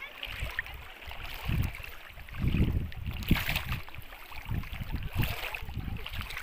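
Shallow sea water sloshing and splashing at the shore, with wind buffeting the microphone in irregular low rumbles.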